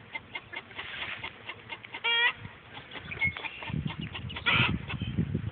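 Chickens clucking, with a short call about two seconds in and another about four and a half seconds in.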